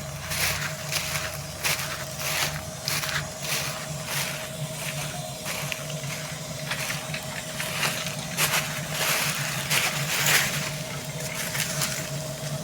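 Combine harvester running under load: a steady machine drone with a constant higher tone, overlaid by frequent irregular crunching and crackling.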